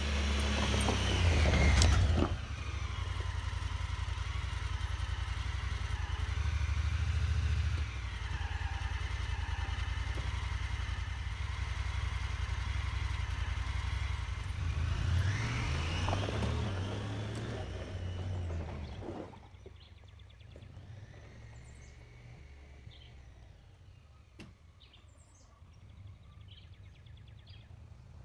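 Honda Pioneer side-by-side's engine running close by, swelling in revs about two seconds in and again around fifteen seconds. After about nineteen seconds it is much quieter and farther off, with small bird chirps.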